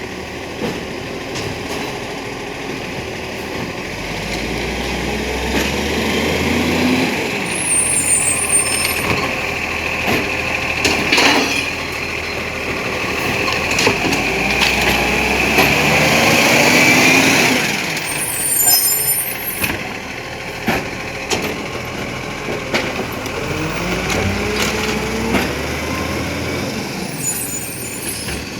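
Iveco ACCO side-loader garbage truck working its Jay hydraulic arm. The diesel engine revs up three times, its pitch rising with each lift, about ten seconds apart. Short bursts of air hiss come between the lifts.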